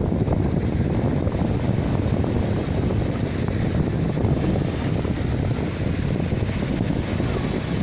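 Sea waves washing onto the shore in a steady, unbroken rush, with wind buffeting the microphone.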